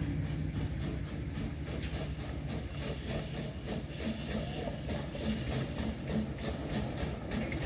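Small narrow-gauge steam locomotive working, its exhaust chuffing in uneven beats over a steady low rumble.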